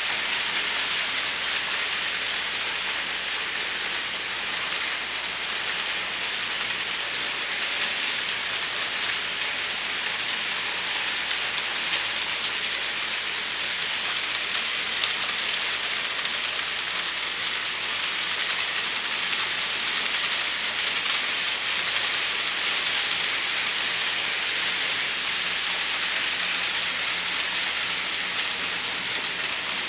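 Model trains running on a layout track: a steady rattling hiss of small wheels on rail and the locomotive motor, flecked with fine clicks.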